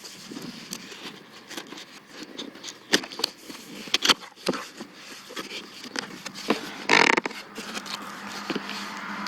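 Packaging being handled while unboxing a tool: irregular scrapes, clicks and knocks, with a louder brief rasp about seven seconds in.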